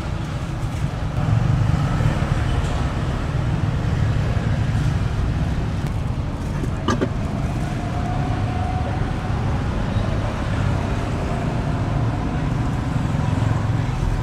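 Steady low rumble of road traffic, with a single sharp click about seven seconds in.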